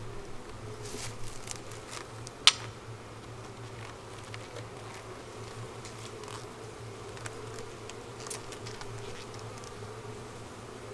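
Honeybees humming steadily around an open hive, with scattered light clicks and one sharp click about two and a half seconds in.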